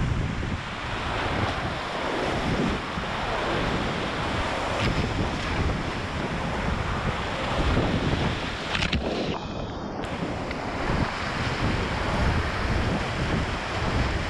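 Loud, steady rushing of whitewater rapids on a river in high water, heard from a kayak running them, with water splashing over the microphone. About nine seconds in the sound is muffled for about a second as water washes over the microphone.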